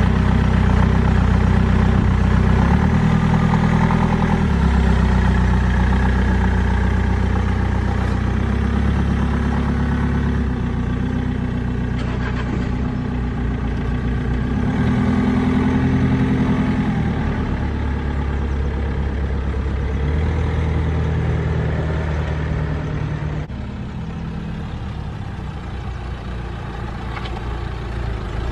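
Car engines running close by: a BMW 1 Series idling and pulling away, then a Nissan Qashqai driving up onto the driveway. The engine note shifts several times and drops in level about two-thirds of the way through.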